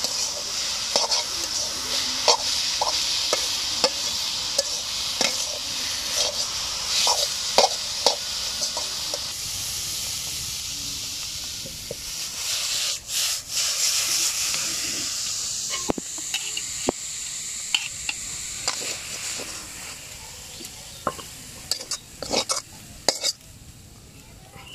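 Leafy greens sizzling in a large metal wok while a metal spatula stirs and scrapes them, with frequent short clicks of the spatula on the pan. In the second half the sizzle dies down, and near the end a few sharper clicks and scrapes come as the greens are scraped out of the wok.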